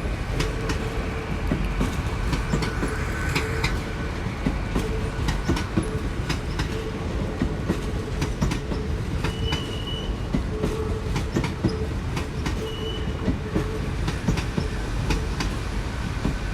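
Great Western Railway Class 802 bi-mode train rolling past, its wheels clicking steadily over the rail joints. Two brief high-pitched wheel squeals come about ten and thirteen seconds in.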